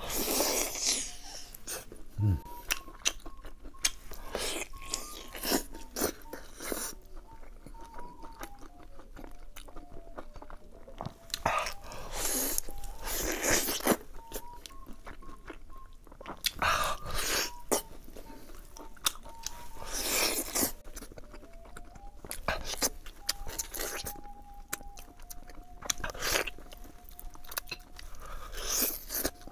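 Close-up eating sounds of a man biting and chewing braised beef rib meat off a large bone: many short, irregular mouth noises in clusters, over a faint background tune.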